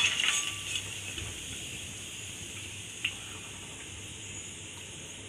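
Hot oil in a wok sizzling softly as a steady hiss, just after fried cauliflower florets have been lifted out, with a light clink near the start and another about three seconds in.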